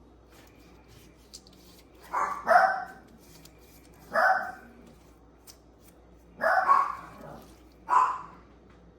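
A dog barking indoors: about six short barks every second or two, some in quick pairs.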